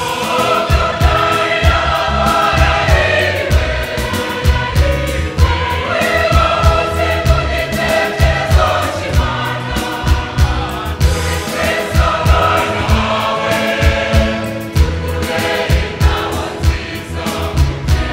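Large mixed choir singing a gospel hymn, accompanied by an electric keyboard, over a steady beat of claps or percussion.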